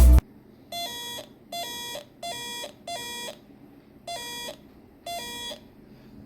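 Electronic doorbell circuit from a Short Circuits kit sounding its buzzy electronic tone six times, each a short burst of about half a second with the same little change of pitch, at uneven intervals as the bell is triggered again and again.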